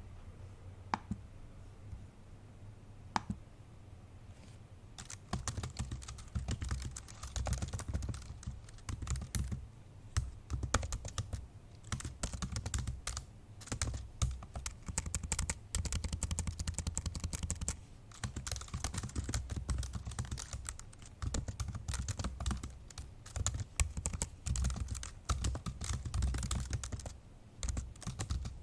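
Fast, heavy typing on an old MacBook Pro laptop keyboard: rapid key clicks in bursts with short pauses, after a few isolated taps at first.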